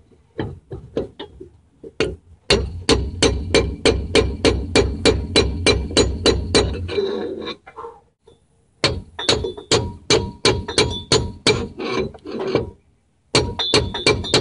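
Hammer blows on a steel drift bar, driving an old pinion bearing race out of a Dana 30 axle housing. The blows come quickly and evenly, about four or five a second, in three runs with brief pauses between them, and each strike rings metallically.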